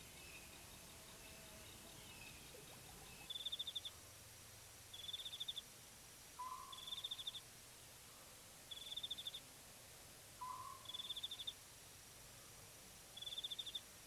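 Faint night-time wild sounds: a short, rapid high trill repeating every couple of seconds, with a lower brief call that drops in pitch twice in between.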